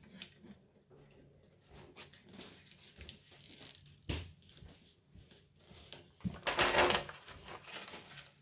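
Paper envelope being slit open with a small knife: light scraping and rustling of paper, a sharp tap about four seconds in, and a louder burst of paper tearing and rustling between six and seven seconds in as the card is drawn out.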